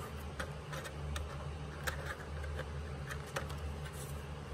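Scattered small plastic clicks and taps from a Kodak Kodamatic 930 instant camera being handled as its film door is unlatched and swung open, over a steady low hum.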